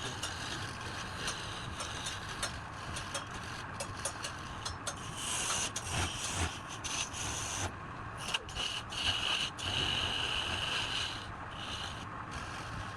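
A tool rubbing and scraping against wood, with many small clicks throughout and a higher whine that comes and goes twice in the middle.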